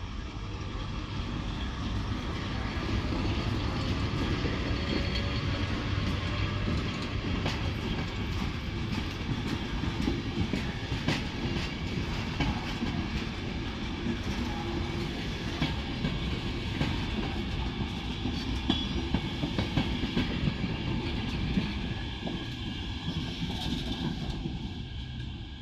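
Electric-locomotive-hauled passenger train passing close by: a steady rumble of rolling coaches with a rapid clatter of wheels over rail joints and points, the clacks thickest through the middle and the sound easing off near the end.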